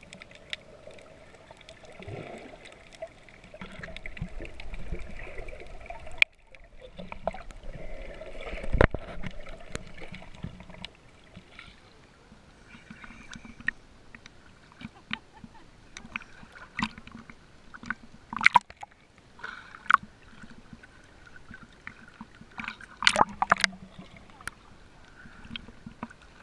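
Water sounds of snorkelling: muffled underwater sloshing and bubbling for about the first half, then choppier surface splashing and water lapping, with several sharp splashes and knocks near the end.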